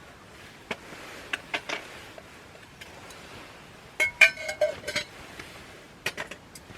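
Camp tableware and cookware being handled and set down: scattered light taps, then a cluster of ringing clinks about four seconds in, and a few more taps near the end.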